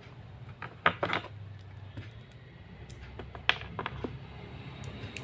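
Laptop hard disk and drive caddy being handled during a drive swap: a handful of sharp plastic and metal clicks and taps, the loudest just under a second in and again midway.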